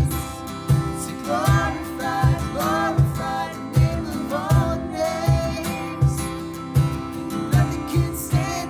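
Music led by acoustic guitar, with a steady low beat and a melody line above it.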